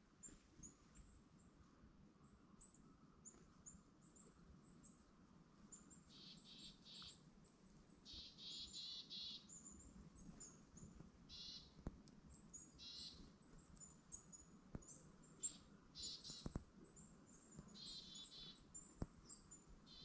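Small songbirds calling in woodland: short, high, thin call notes repeated throughout, joined from about six seconds in by several longer buzzy call bursts, with a few sharp clicks in the second half.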